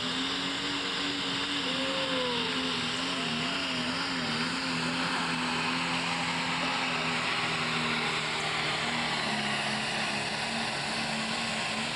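Pro stock pulling tractor's turbocharged diesel engine running flat out under full load while pulling the sled. The note is steady, with a strong hiss above it, and its pitch wavers a few times in the middle of the pull.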